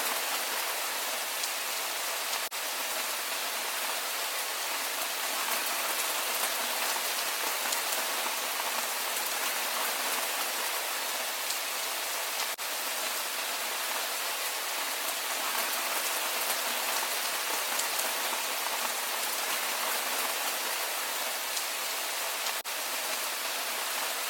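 Steady rain falling, an even hiss of many drops with single drops standing out here and there.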